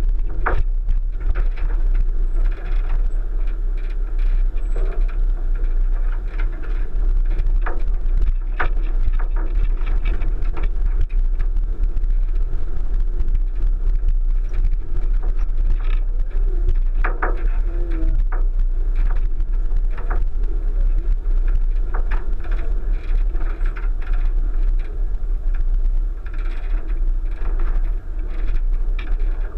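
A 1999 Subaru Forester's flat-four engine runs as the car drives over a rough dirt track, heard from a roof-mounted camera, with a heavy low rumble. Scattered knocks and clatters come through, several between about 8 and 20 seconds in.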